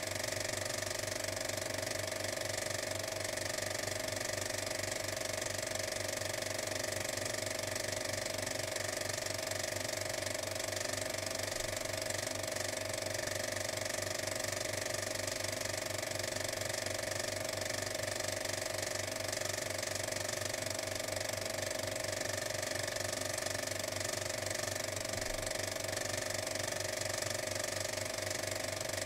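A steady machine-like drone with a fast, even rattle under a constant hum, unchanging throughout.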